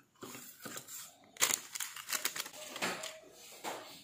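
Irregular small clicks and crinkles of hands sprinkling seasoning from a sachet onto raw fish on a plate, coming thickest from about a second and a half in.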